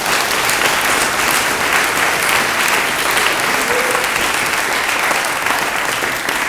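Audience applauding: dense, steady clapping from a crowd, easing a little near the end.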